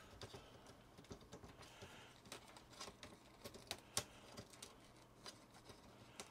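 Faint, scattered small clicks and taps of plastic keyboard parts being handled while a Commodore Plus/4 keyboard is taken apart, with one sharper click about four seconds in.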